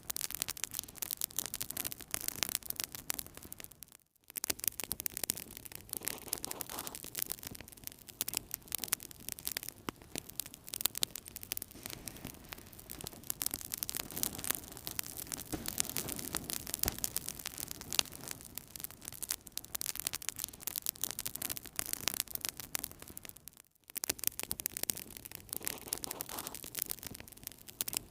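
Wood fire in a fireplace crackling, with many small sharp pops over a steady hiss of burning. The sound cuts out briefly twice, about four seconds in and again near the end.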